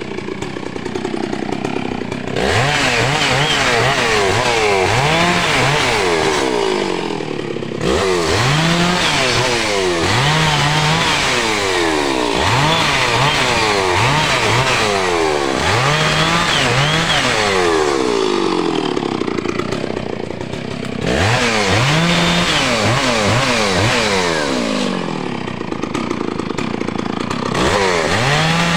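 Stihl MS660 Magnum two-stroke chainsaw cutting through a felled log, its engine revved up and let down again and again. It settles back to a quieter idle briefly several times.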